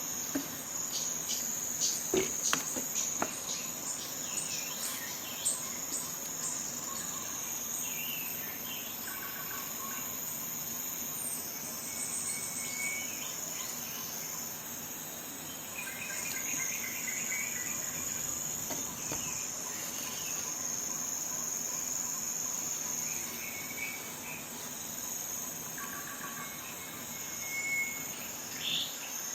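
Steady high-pitched insect chorus of crickets or similar insects trilling without a break, with short bird chirps here and there. A few sharp clicks come about two to three seconds in.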